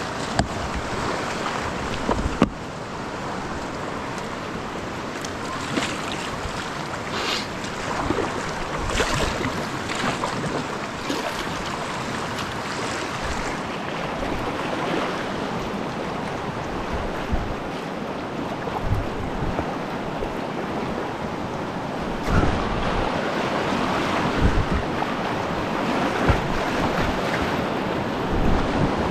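Fast creek current rushing around a kayak, with paddle strokes splashing now and then and wind buffeting the microphone. The water grows louder over the last several seconds as the boat nears a rapid.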